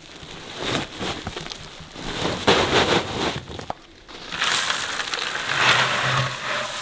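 Dry, crumbly bear bait poured from a plastic bucket onto leaf litter: a rushing, crunchy patter in three pours, the last and longest lasting about two and a half seconds.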